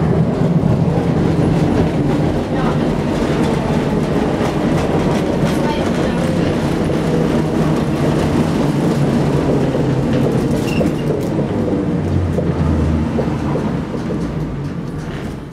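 Gotha-built tramcar heard from inside the saloon while running along street track: a steady rumble of wheels on rail and running gear with a low hum and some clickety-clack. It gets quieter near the end.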